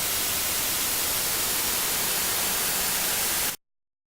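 Steady hiss of TV-style static, like white noise, which cuts off abruptly near the end.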